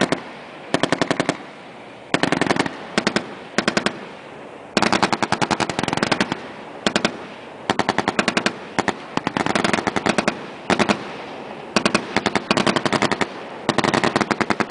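M240B 7.62 mm machine gun firing many short bursts of a few rounds each, with brief pauses between them and a longer burst of about a second roughly five seconds in.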